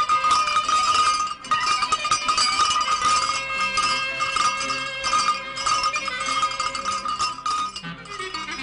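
Many metal bells clanging together without pause, in a dense jangle that dips briefly about one and a half seconds in.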